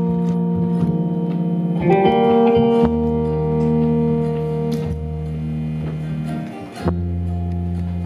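Live band playing an instrumental passage: acoustic guitar chords ringing over electric guitar and upright double bass, with fresh chords struck about two seconds in and again near the end.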